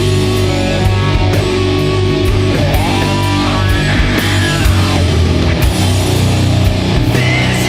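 Doom metal band playing an instrumental passage: loud guitars and bass holding low chords over steady drum hits, with no vocals.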